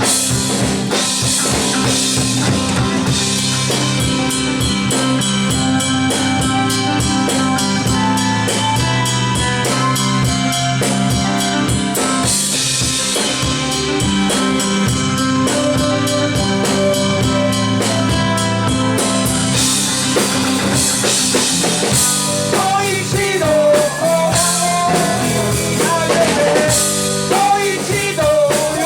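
Live rock band playing an instrumental passage: a drum kit keeps up a steady beat under sustained keyboard and guitar chords. Past the middle, a wavering lead melody comes in over the top.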